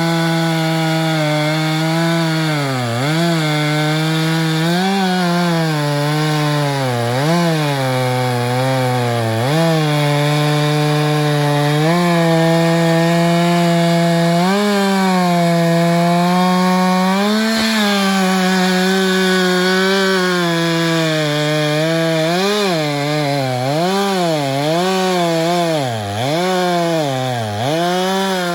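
Chainsaw running at high revs while cutting through a pine log, its pitch sagging each time the chain loads up in the wood and climbing back as it frees. The sags come faster and deeper near the end.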